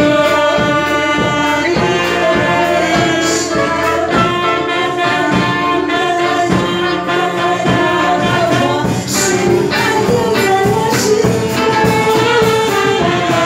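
Live band music: a saxophone section playing the melody over a steady drum-kit beat.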